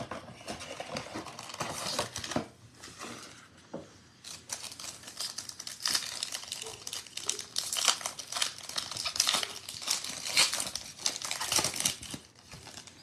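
Foil Panini Prizm football card packs crinkling as they are handled and one is torn open. The dense crinkling and tearing runs from about four seconds in until shortly before the end.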